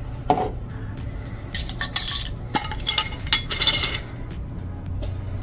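Metal measuring spoons and utensils clinking and scraping against a mixing bowl and spice containers as dry seasonings are spooned in, in irregular bursts that thin out near the end.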